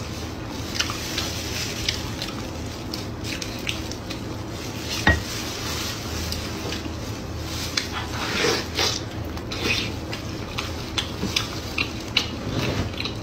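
Close-up eating sounds from a glazed braised pork knuckle: wet chewing and lip smacking, sticky meat pulled apart by hands in plastic gloves, as many small irregular clicks and smacks. One sharp knock about five seconds in is the loudest sound.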